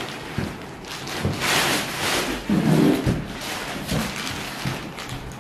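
Rustling of a large TV panel's protective wrap as it is pulled off and the set is lifted out of its cardboard box, with a few dull knocks and a brief voice about halfway through.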